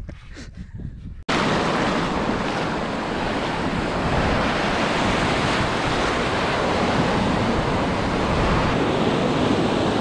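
Waves breaking and washing around the wading angler in the surf, a loud steady rush, with wind on the microphone. It cuts in abruptly about a second in, after a quieter moment.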